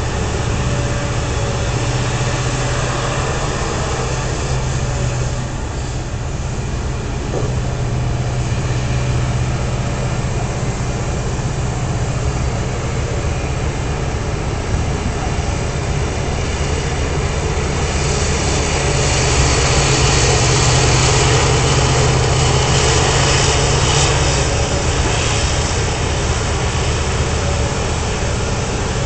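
Hitachi EX3600 mining excavator's diesel engine running steadily as the machine digs and swings, a deep continuous engine hum. It grows louder and hissier for about six seconds past the middle.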